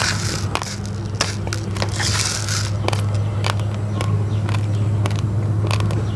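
Raw, uncooked basmati and glutinous rice grains being chewed close to the microphone: a run of sharp cracks and crunches, with a steady low hum underneath.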